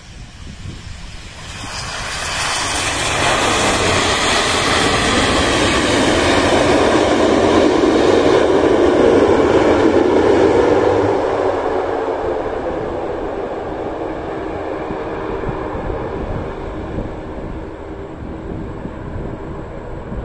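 ATR twin-turboprop airliner on its landing roll: a loud roar of engines and propellers that swells about two seconds in and is loudest near the middle as it passes. It then eases into a steadier propeller drone with a thin high whine as it moves away down the runway.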